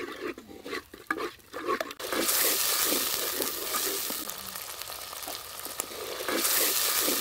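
Ground masala paste and sour yogurt sizzling in hot oil in a clay pot while a wooden spatula stirs and scrapes through it. The sizzle turns loud about two seconds in, under the repeated scraping strokes.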